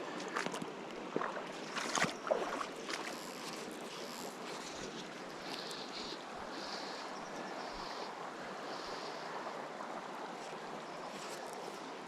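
Steady rush of a small river's flowing water, with a few sharp knocks in the first three seconds.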